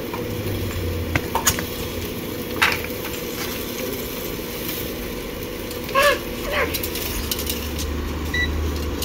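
Chicken sizzling on a small barbecue grill over a steady hum, with a few light clicks. A short, high, falling voice is heard about six seconds in.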